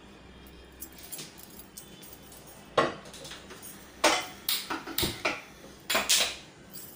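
A gas stove burner being lit: about seven sharp clicks from the knob and igniter, spread over three seconds and starting about three seconds in.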